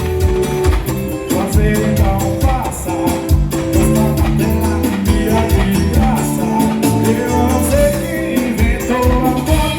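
Loud music with singing and a heavy, pulsing bass beat, played through a street sound system.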